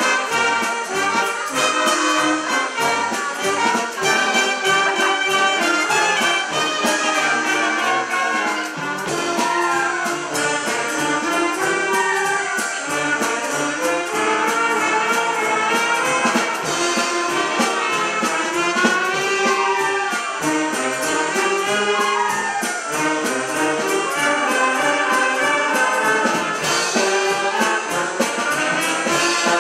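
Wind band playing live: clarinets, flutes and saxophones with trumpets and other brass together, a busy moving melody over a steady accompaniment.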